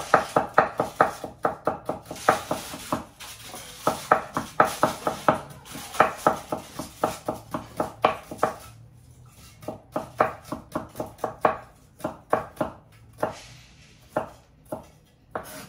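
Kitchen knife chopping a red onion on a wooden cutting board: rapid, even strokes at about five a second for roughly the first half, then slower, more spaced strokes.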